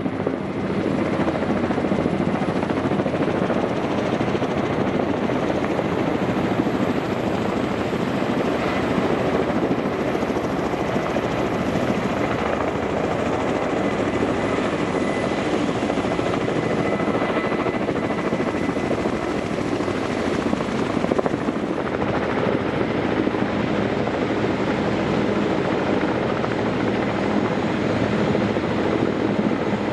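Kamov Ka-32 coaxial-rotor helicopter flying overhead, its twin turboshaft engines and contra-rotating rotors making a steady, loud noise.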